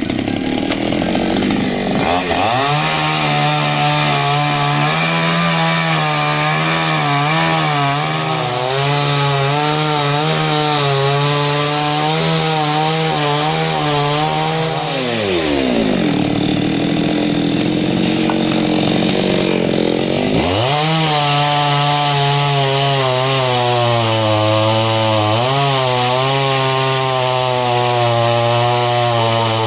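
Chainsaw running at full throttle while cutting through a coconut palm trunk. It eases off about halfway through, then revs back up and cuts again.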